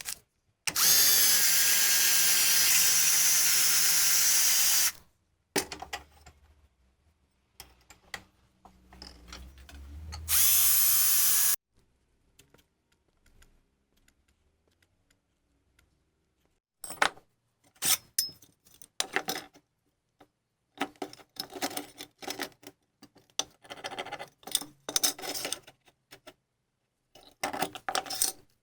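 A power tool runs at full speed with a steady high whine for about four seconds, then starts again briefly near the middle. In the second half come many short, irregular clattering knocks.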